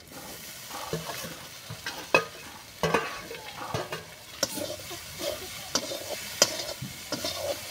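Freshly added vegetables and fish heads sizzling in hot mustard oil in a steel kadai as they are stirred, with a sharp scrape or knock of the wooden stirring stick against the pan about once a second.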